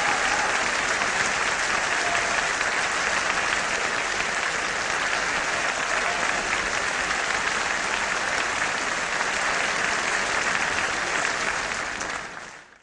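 Theatre audience applauding steadily, a dense continuous clapping that fades out quickly near the end.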